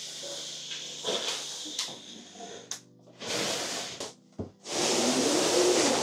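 A heavy cardboard box holding a 3D printer is shoved across the floor, scraping and sliding in pushes, with two longer drags in the second half and a short knock between them.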